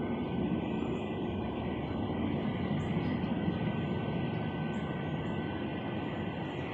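An unidentified, steady, train-like rumbling drone with a higher droning tone that sets in at the start. Faint short chirps sound above it about once a second.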